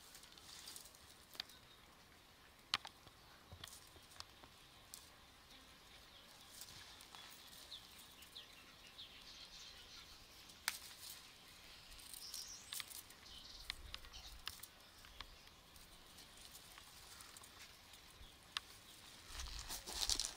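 Faint rustling of leaves and dry grass with scattered small snaps and clicks as cherry tomatoes are picked off the vine, and a louder rustle near the end.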